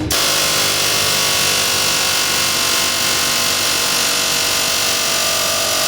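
Harbor Freight Chief medium-barrel air hammer running steadily and loud without a break, its bit driven against a bushing to knock it out.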